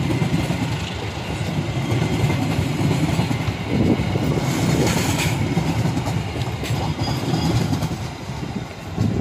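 Passenger coaches of a departing train rolling past at low speed, a steady rumble with the wheels clattering over the rail joints. The last coach goes by near the end.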